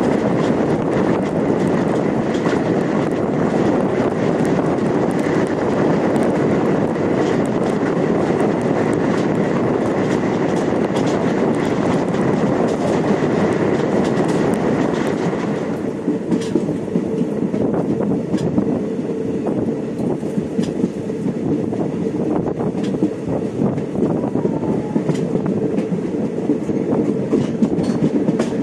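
Train running on the rails: a loud steady rumble with the clickety-clack of wheels over rail joints. About halfway through, the higher hiss drops away and the clacks and knocks stand out more plainly over the rumble.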